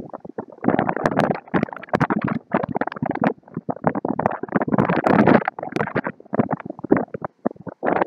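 Strong wind buffeting the microphone in choppy, irregular gusts that drop away for moments between them.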